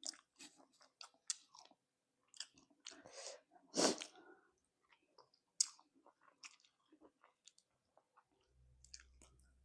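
Close-miked mouth sounds of someone eating spicy chicken feet: faint, scattered wet smacks and small clicks of chewing and nibbling, with one louder breathy sound about four seconds in.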